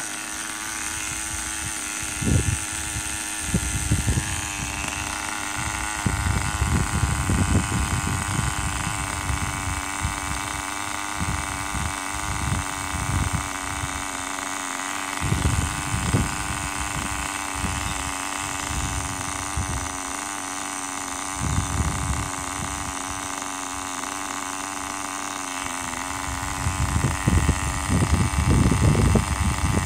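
Small nitro glow engine of a 1/10 Tamiya Raikiri RC car idling steadily with a high, even buzz. Irregular low thumps and rumbles sound over it, heavier near the end.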